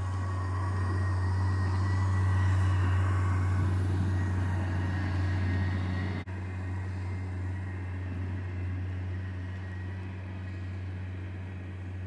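Compact wheel loader clearing snow, its engine running steadily with a higher whine on top. The sound grows louder over the first few seconds, then fades in the second half.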